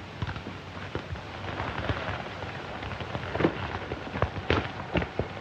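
Horses' hooves clattering in irregular knocks as riders mount up and ride off, over the hiss of an old film soundtrack.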